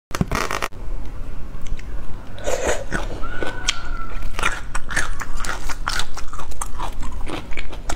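Raw whole prawns handled and their shells cracked and pulled apart by fingers, close to the microphone: a steady run of wet clicks and crackles.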